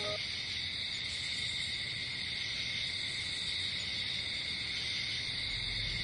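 Crickets chirping steadily in a high-pitched night chorus.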